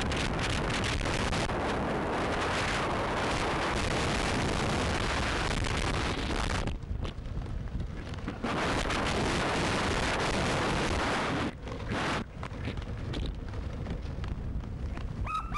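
Wind buffeting the microphone of a camera on a wheeled dog-sled rig rolling fast behind a running dog team, mixed with the rig's road rumble. The noise is loud and steady, easing twice for a moment, about seven and about twelve seconds in.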